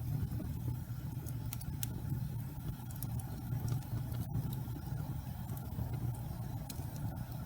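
Wood fire burning in a fireplace: a steady low rumble of the flames with scattered sharp crackles and pops.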